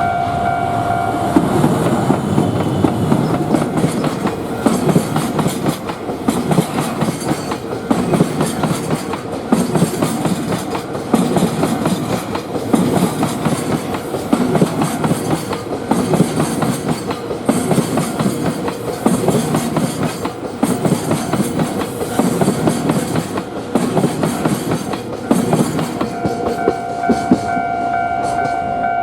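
Level crossing warning bell ringing steadily, drowned out about a second in by a long train passing over the crossing. Its wheels beat over the rail joints about every second and a half. The bell is heard again near the end, as the last car clears.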